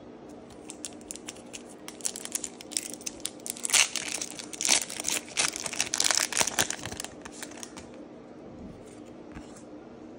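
Foil wrapper of a Pokémon 151 booster pack being torn open and crinkled: a run of sharp, dense crackles that grows loudest in the middle, then thins out and stops about two seconds before the end.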